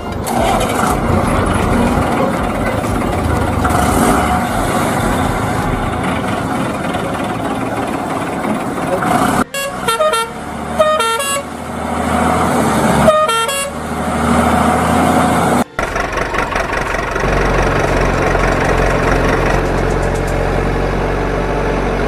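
Truck engine sound effect running steadily under the toy dump trucks. From about ten to sixteen seconds in it gives way to a truck horn playing a tune of short notes that step up and down in pitch, and then the engine comes back as a steady low hum.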